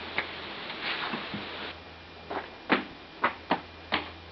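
A handful of sharp knocks in quick succession, the loudest a little past halfway, after a brief rustle; a low steady hum runs underneath.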